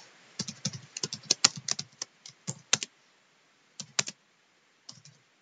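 Typing on a computer keyboard: a quick run of keystrokes for about the first three seconds, then a pause and a few scattered keystrokes.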